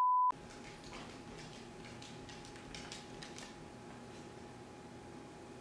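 A loud, steady test-tone beep over a 'technical difficulties' card cuts off sharply about a third of a second in. After it comes quiet room tone with a faint steady hum and a few light ticks.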